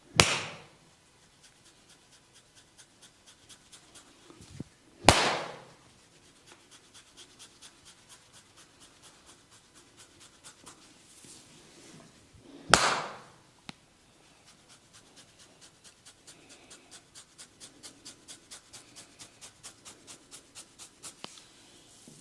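Hair cracking: loud, sharp cracks as tufts of scalp hair are gripped and snapped. There are three cracks, about five and seven seconds apart, each with a short trailing tail. Between them comes quieter, steady crackling at about three snaps a second.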